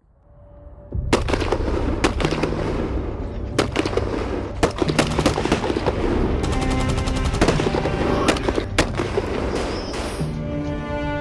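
Battle sound effects over dramatic music: rapid gunfire and machine-gun fire with booms, fading in from silence and loud from about a second in. Near the end the shots thin out and the music's held chords come forward.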